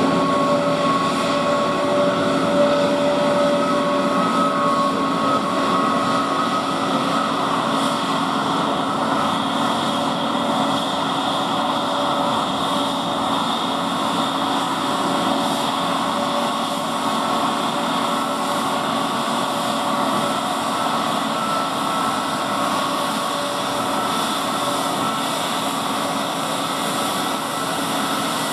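Airbus A321neo airliner's Pratt & Whitney PW1100G geared turbofans running at taxi idle: a steady jet whine with several held tones over a broad rush.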